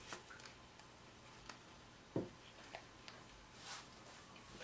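Faint handling noises of a ribbon hair bow being fingered: a few light clicks and taps, the strongest a soft knock about two seconds in, and a brief soft rustle near the end, over quiet room tone.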